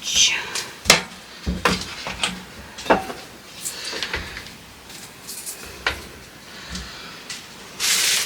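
Kitchen clatter from dishes and cupboards being handled: a series of separate sharp clacks and knocks, with a short hiss near the end.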